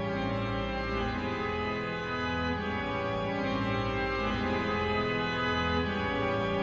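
Background organ music playing slow, held chords.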